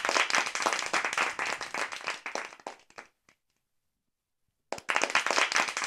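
Canned audience applause, a dense patter of many hands clapping. It cuts in abruptly, dies away about three seconds in, and after a second of dead silence starts again suddenly.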